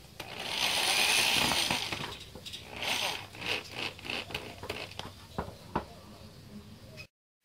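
Electric drill boring through a plastic car side skirt: the drill runs for about two seconds, then a shorter burst near three seconds in, followed by scattered clicks and knocks.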